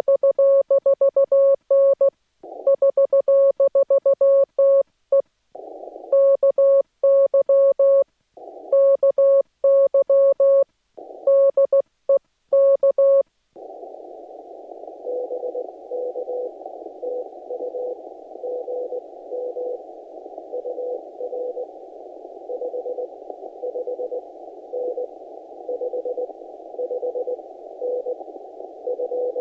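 Morse code on an amateur radio transceiver. First comes a clean, loud beep keyed in dot-and-dash groups with dead-silent gaps, typical of the operator's own sending heard as sidetone. About halfway through this gives way to the receive side: a steady band of hiss from the narrow CW filter, with a weaker Morse signal keyed through it at the same pitch.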